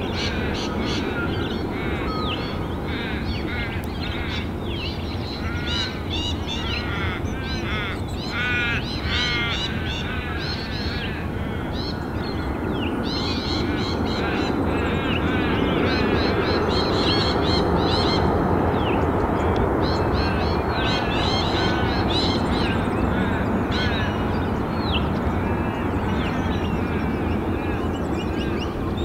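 Many birds calling over and over in short, harsh, high-pitched calls, thickest in the first ten seconds. Beneath them runs a steady low rumble of distant jet airliner noise, which grows louder about halfway through.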